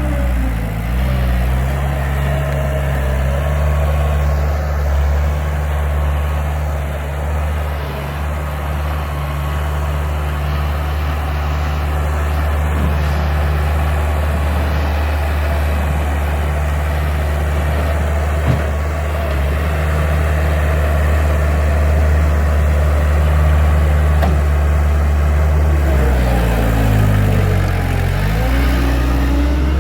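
Skid steer loader engine running steadily under work, its speed dipping and recovering briefly about a second in and again near the end. There is a single sharp knock about two-thirds of the way through.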